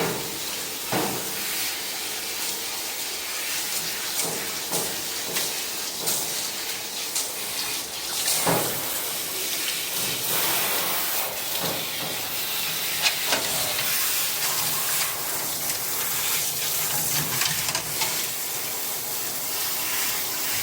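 Steady hiss of running water spraying during a Shiba Inu's wash, with a few short louder sounds breaking through it.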